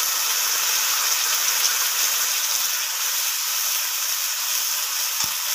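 Onion and ginger-garlic paste sizzling in hot oil in a kadai: a steady, dense hiss. A single brief knock about five seconds in.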